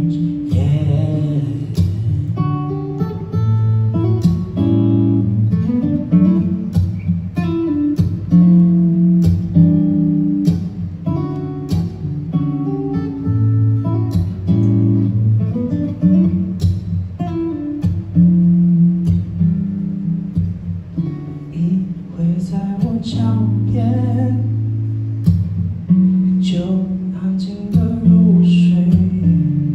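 Acoustic guitar playing an instrumental passage of strummed chords and picked notes.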